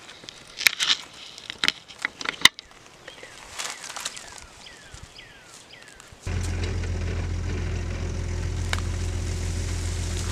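Crackling and clicking of dry bark, pine needles and twigs as a felled pine log's cut end is handled on the forest floor. About six seconds in, a steady low engine drone starts abruptly and runs on.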